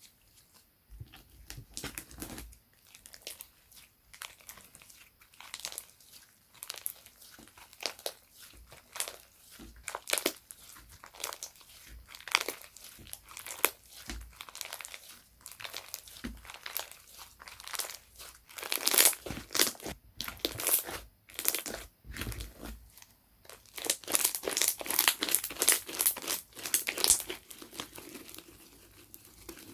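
Slime being squished, stretched and pressed by hand, giving off dense crackling clicks and pops. The crackling comes in runs, with the loudest ones about two-thirds of the way through and again near the end.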